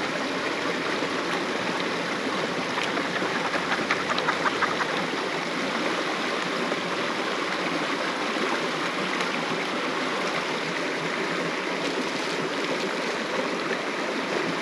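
Creek water rushing steadily, with a short burst of rapid clicks about four seconds in, as gravel is worked in a gold pan.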